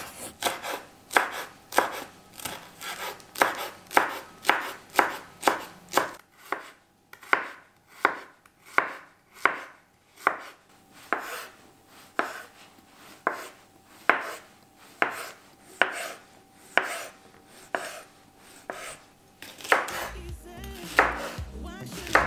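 Large kitchen knife chopping vegetables on a wooden cutting board: sharp knocks of the blade through spring onion, zucchini and flat green bean pods into the board, about two a second in an even rhythm.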